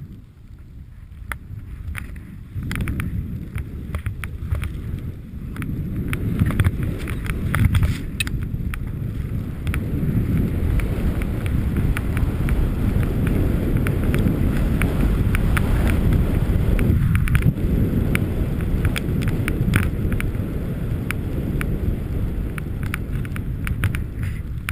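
Wind rushing over a GoPro's microphone as a skier runs down deep powder, the rumble building over the first few seconds as speed picks up and then staying loud, with the skis running through the snow and many small clicks.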